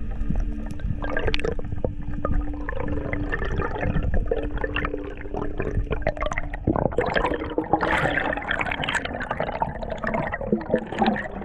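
Water sloshing and bubbling, with a low steady hum under it that stops about two-thirds of the way through. From then on the water noise is louder and denser.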